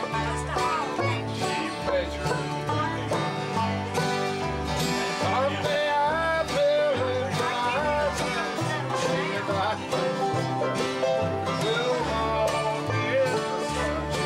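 Bluegrass band playing: strummed acoustic guitar, picked banjo and upright bass plucking notes on an even beat, alternating between two pitches, with a wavering melody line on top.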